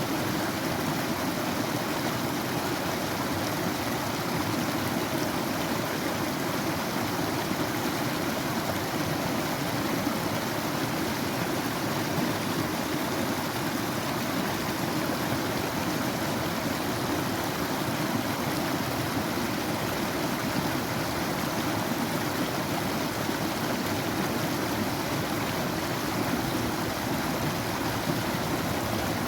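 Flowing water running steadily with an even rushing hiss and no breaks.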